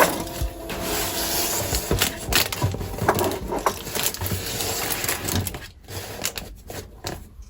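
A sharp click, then dry rustling and scraping with scattered small knocks as pantry goods and storage containers are handled. It dies down after about five and a half seconds.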